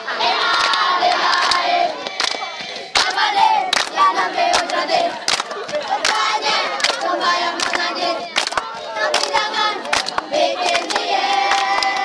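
A group of boys chanting a rap together in loud unison, clapping their hands to a steady beat.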